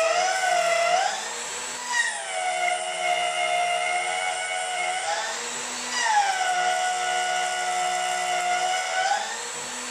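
CNC mill spindle driving a new, sharp end mill in surfacing passes across an aluminum block: a steady machining whine with no squealing vibration. The pitch bends up and the sound drops in level at about one, five and nine seconds in, between stretches of cutting.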